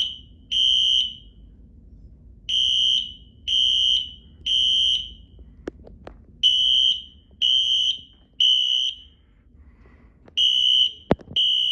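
Wheelock Exceder HSR fire alarm horns sounding the temporal-three evacuation pattern: groups of three loud, high-pitched beeps about a second apart, each group followed by a short pause, repeating every four seconds. A few sharp clicks fall in the gaps between groups.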